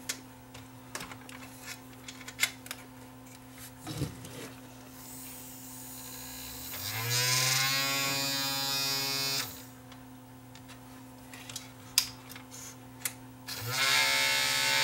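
Small DC spindle motor of a Panasonic DVD-S35 run straight off a bench power supply. After scattered clicks, it whines up in pitch about 7 s in, runs steadily and cuts off after a couple of seconds, then spins up again near the end. It puts out a lot of vibration, which the owner takes as a sign the motor might be going bad.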